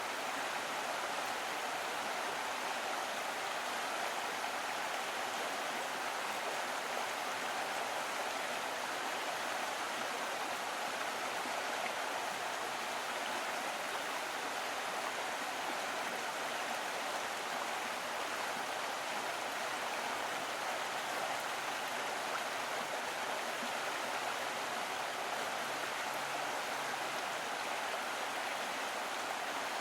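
A small stream running steadily over rocks, an even gurgling rush of water.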